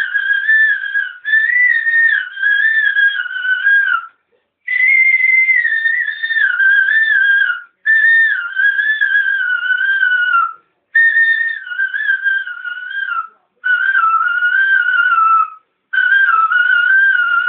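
A man whistling a slow, ornamented melody in about six phrases, each drifting down in pitch, with brief breaths between them.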